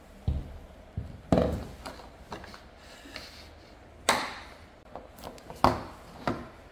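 Irregular hollow thumps and knocks, about half a dozen, the loudest about four seconds in: footsteps and handling on a camper van's roof.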